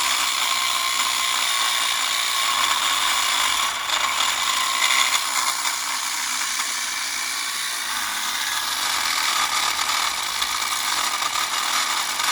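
A power tool running continuously at steady speed, a high whine over a loud hiss, with a brief dip about four seconds in.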